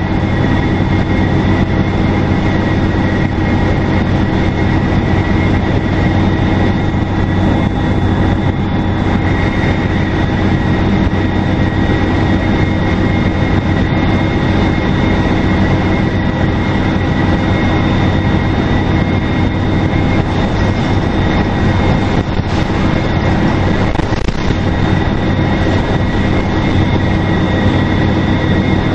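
Detroit Diesel Series 50 four-cylinder diesel of a 2002 NABI 40LFW transit bus running steadily under way, with a steady high turbocharger whistle over the engine drone and road noise.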